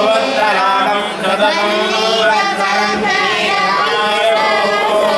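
Several voices singing a devotional chant together, continuous and melodic, over a steady low tone.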